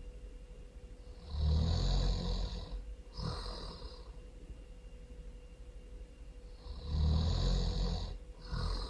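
Loud snoring: two long, rasping snores about five and a half seconds apart, each followed by a shorter, hissier breath.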